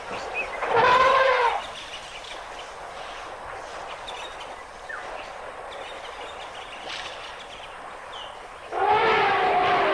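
Elephant trumpeting: a short blaring call about a second in, then a longer one near the end.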